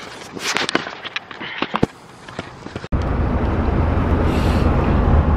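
Camera handling noise, rustles and scattered sharp clicks, as the camera is swung about. About three seconds in, this cuts abruptly to the steady low rumble of a car's engine and road noise heard from inside the cabin while driving.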